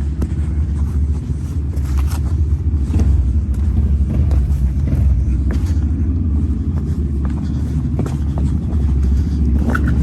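ATV engine running steadily while riding, a continuous low rumble with scattered knocks and rattles throughout.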